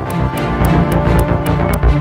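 Theme music with a steady ticking beat and sustained low notes, growing louder.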